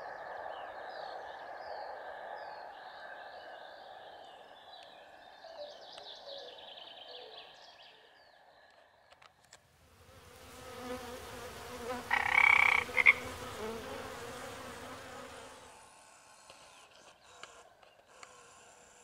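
Frogs croaking, with one loud burst of rapid croaks about two-thirds of the way through; faint bird chirps in the first half.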